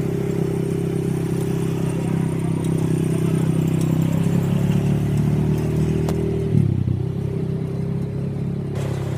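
Quad bike (ATV) engine running with a steady drone; its pitch shifts as the throttle changes, with a brief dip about six and a half seconds in.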